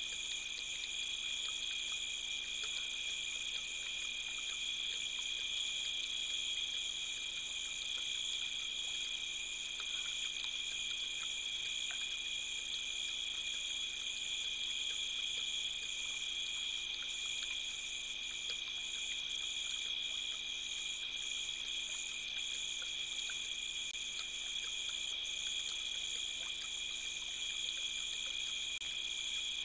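Night insect chorus: a steady, high-pitched trilling in several layers that runs without a break.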